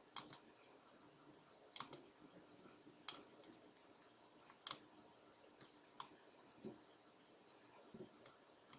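Computer mouse clicking: scattered single clicks and quick double clicks, about a dozen in all, over faint room tone.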